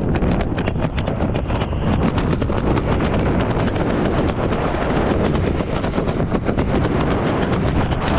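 Wind noise on the microphone during descent under an open parachute canopy: a loud, continuous rush with rapid, irregular crackling buffets.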